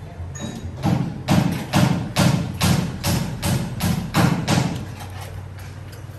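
A short rhythmic percussion beat: about ten evenly spaced thumping strikes, roughly two and a half a second, that stop a little past the middle.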